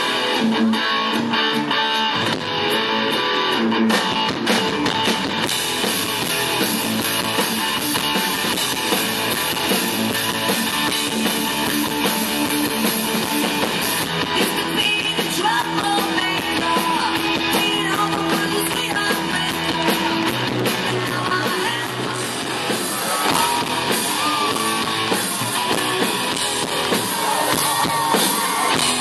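Live rock band playing: electric guitars over a drum kit, running steadily with no break.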